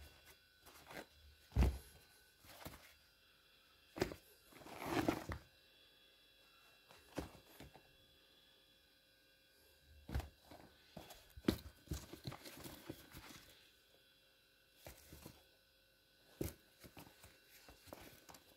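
Sneakers being handled and moved about on a rug: scattered dull knocks and thumps with bouts of rustling and scuffing, the longest rustle about five seconds in and a busier stretch from about eleven to thirteen seconds.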